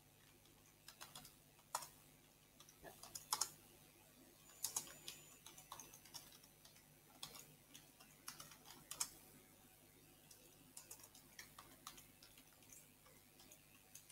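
Faint, irregular keystrokes on a computer keyboard, typing in short clusters with brief pauses between.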